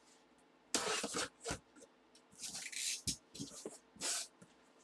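A box of packaging being opened by hand: several short bursts of tearing and rustling of cardboard and wrapping.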